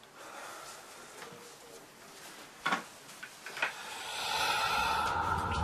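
Quiet office room tone with a few short knocks and clicks as a man sits down in a leather desk chair, then an eerie sound with steady tones swelling up over the last second or so.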